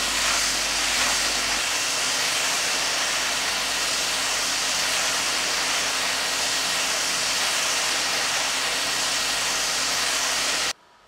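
Peanut roasting machine running, its rotating stirring arms sweeping through a bed of roasted peanuts, giving a steady rushing hiss that cuts off abruptly near the end.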